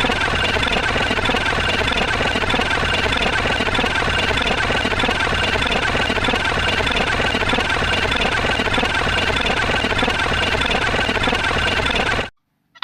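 A loud, dense, steady din of layered sound effects, a thick mechanical rumble with several held tones on top, that cuts off suddenly near the end.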